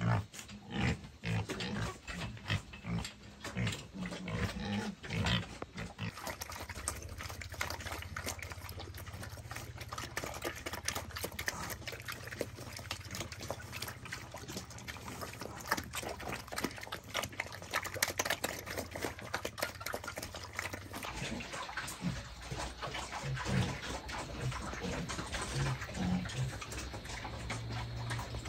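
Pigs grunting and feeding: a continuous mass of small chomping clicks, with low grunts clearest in the first few seconds and again near the end.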